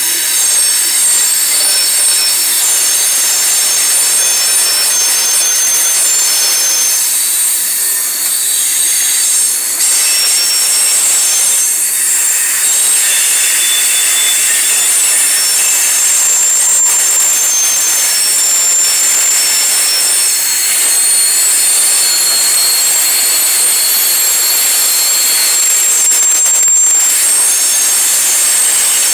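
Steel wheels of loaded coal hopper cars screeching against the rails as the train rolls past: a loud, steady squeal of several shrill tones held over the rumble of the cars.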